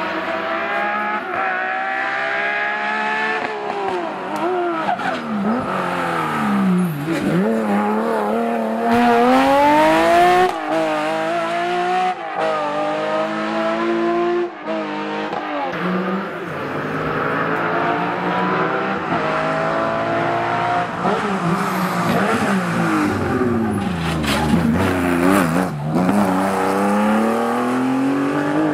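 Classic Porsche 911 rally cars at full effort one after another, their air-cooled flat-six engines revving up and down repeatedly through gear changes and lifts for the bends.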